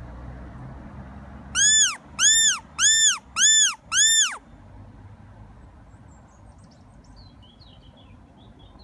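Mouth-blown predator call whistle (Fox Call) blown in five short notes, each rising and falling in pitch, a squealing call used to lure foxes.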